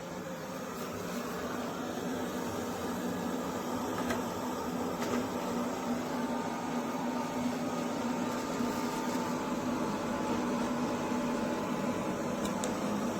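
MONSGA robot vacuum cleaner running: a steady motor hum and airflow hiss with a light whine and a few small clicks. It swells over the first two seconds and holds steady.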